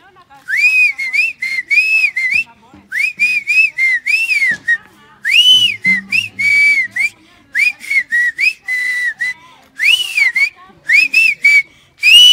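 A boy whistling through his lips: quick runs of short, clear notes that each rise and fall, in phrases broken by brief pauses.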